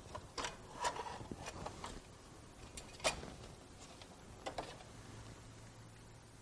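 Faint clicks and light knocks of hardware being handled, several in the first two seconds, the sharpest about three seconds in and a pair at about four and a half seconds, followed by a faint low hum.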